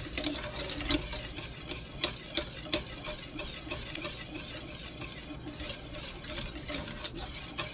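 Wire whisk stirring cream sauce in a stainless steel saucepan, the wires clicking lightly and irregularly against the pot, as roux is whisked into a cream reduction to thicken it.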